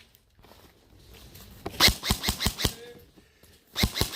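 Airsoft guns firing: a quick string of about six sharp shots about two seconds in, then a short burst of three or four more near the end.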